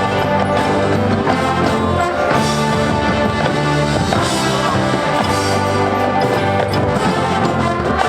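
High school marching band playing a loud brass passage, trombones and trumpets over drums, without a break.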